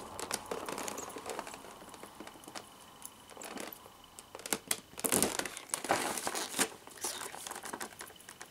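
Packaging tape being picked at and peeled off a collectible figure's box, with crinkling packaging and scattered small crackles and ticks, busiest about five to seven seconds in.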